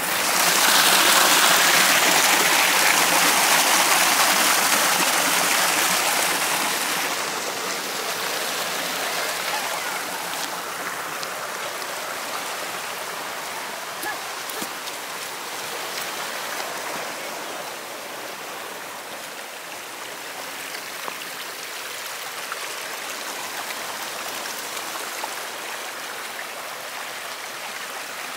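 Steady rush of a forest stream, loudest in the first few seconds and then gradually fading.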